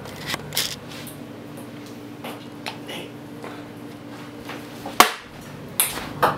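Refrigerator running with a steady low hum, with scattered light knocks and one sharp click about five seconds in, where the hum stops.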